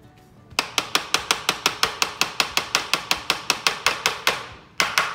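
A plastic measuring cup knocked rapidly against the rim of a metal tray to shake out thick hair conditioner that sticks in it: sharp, evenly spaced knocks, about six a second, with a short break near the end before they start again.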